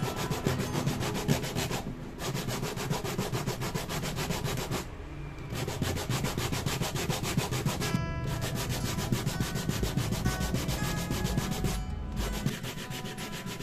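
Sandpaper on a block rubbed by hand over the wooden bridge of an acoustic guitar, sanding it down in quick back-and-forth strokes. The strokes stop briefly a few times.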